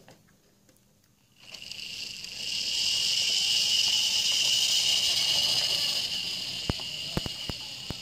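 Model locomotive's small electric motor and gears running with a steady high-pitched whine as the Mainline J72 tank engine model runs along the track. The whine starts about a second and a half in, is loudest in the middle and fades near the end, with a few sharp clicks near the end.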